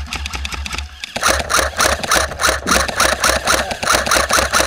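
Airsoft electric rifle, an ICS L85A2, firing a rapid string of shots, about seven a second, starting about a second in.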